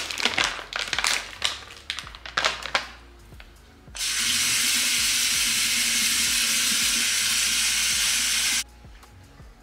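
Plastic produce bag crinkling and rustling as asparagus is taken out, then a kitchen tap running steadily for about four and a half seconds as the asparagus is rinsed, turned on and off abruptly.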